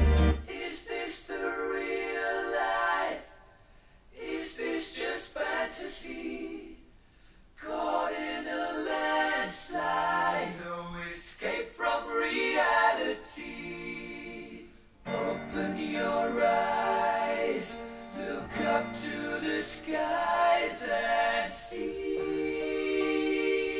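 Choir singing, played back through a Marantz PM7200 amplifier and loudspeakers, with short breaks between phrases.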